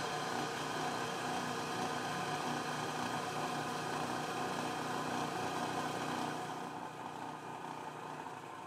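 Vertical milling machine running steadily with its end mill spinning, the cutter lightly skimming the round stock to raise a witness mark. A steady machine hum with several fixed tones that eases slightly near the end.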